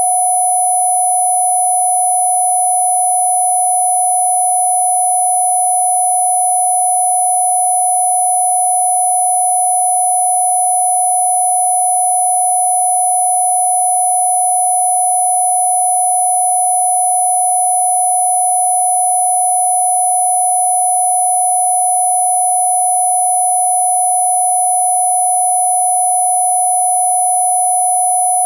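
Electronically generated pure sine tone, mid-pitched and held perfectly steady without any change, with a fainter high-pitched tone above it: a Rife 'cough relief' healing frequency track.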